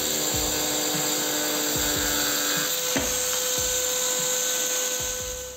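DCA ASM15-100B 720 W electric angle grinder with a turbo diamond ceramic blade, cutting through ceramic tile and then spinning free once lifted out of the cut about three seconds in. It gives a steady whine over a grinding hiss, which falls away at the very end.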